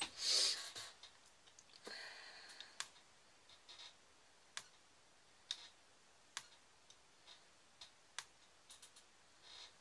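Faint, sharp plastic clicks about once a second as a drill pen picks rhinestones from a plastic tray and presses them onto a diamond-painting lid. A short rustle comes at the very start.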